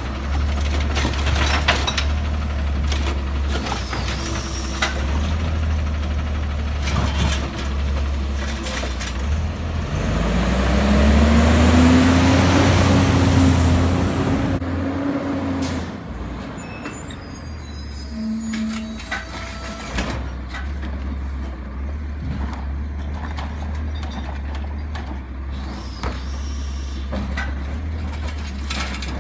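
Automated side-loader garbage truck at work: its diesel engine runs under many knocks and clanks from the arm and carts. About ten seconds in, the engine revs up in a loud rising tone for several seconds. Later the sound drops to a garbage truck's engine running at a distance, with scattered knocks.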